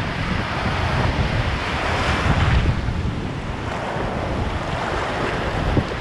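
Wind buffeting the microphone over a steady wash of surf, swelling briefly about two seconds in.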